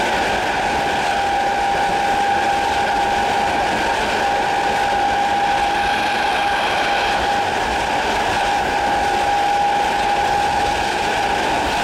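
GEC G315BZ traction motors of a Class 317 electric multiple unit whining at a steady pitch while the train runs at speed, over the rumble of wheels on the rails.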